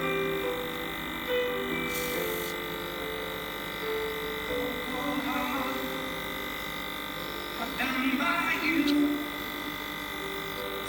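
Small handheld electric air blower running with a steady electric hum, used to push wet acrylic paint around. Background music with melodic notes and a singing voice plays under it, the voice strongest about eight seconds in.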